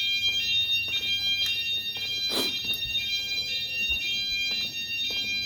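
Fire alarm sounding: a steady, high-pitched electronic tone, with a brief rustle about two and a half seconds in.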